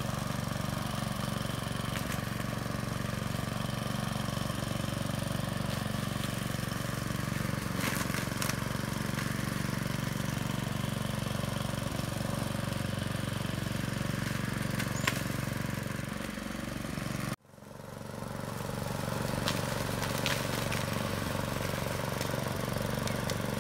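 Bison gasoline push lawnmower's small engine running steadily as it is pushed through grass and rough ground.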